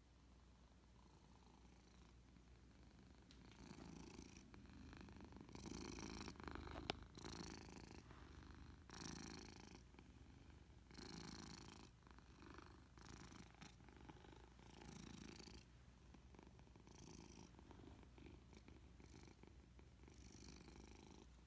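Domestic cat purring faintly and steadily close to the microphone, the purr swelling with each breath roughly every two seconds. A single sharp click about seven seconds in.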